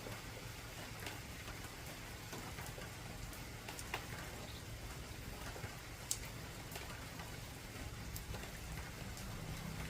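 Heavy rain falling on an old tin roof: a steady hiss with individual drops ticking sharply on the metal, two of them louder about four and six seconds in.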